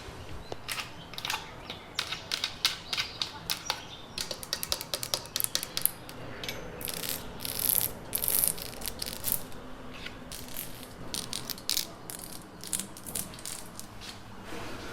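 Close-up ASMR trigger sounds: objects being tapped and poked in quick, irregular clicks, with a scratchy rustle about halfway through.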